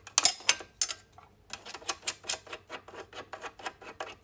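Small clicks and taps of fingers handling a metal triple-fold binder attachment on a cover-stitch machine while unscrewing its plastic thumbscrew. A few louder clicks in the first second, then a run of quicker, fainter ticks, several a second.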